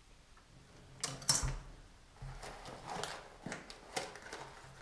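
Handling of small-parts packaging on a table: a sharp knock about a second in, then intermittent rustling and crinkling as a packaging bag is handled.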